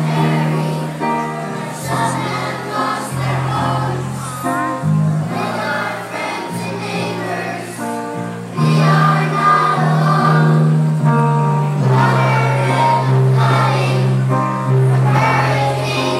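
A group of children singing together in unison with instrumental accompaniment, over a bass line of held low notes that change every second or two.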